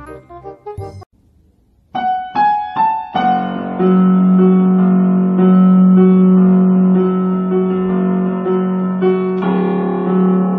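Electronic keyboard playing: three struck chords, then held chords over a steady low note. A different short tune plays for about the first second before a brief pause.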